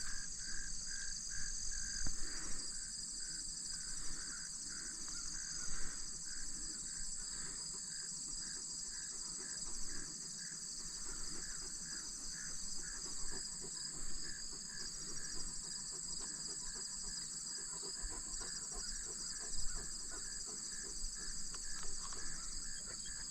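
Field insects chirping: a steady high-pitched buzz with a regular chirp repeating about three times a second, plus a few faint knocks.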